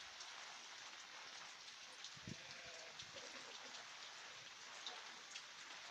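Steady rain, an even hiss with scattered drops ticking, and one soft low thud about two seconds in.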